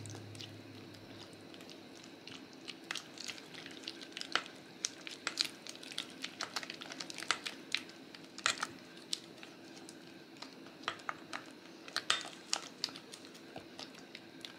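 Spatula scraping and tapping against a stainless steel bowl while mixing soft cream cheese batter with egg. The sound is a stream of short, irregular clicks and scrapes.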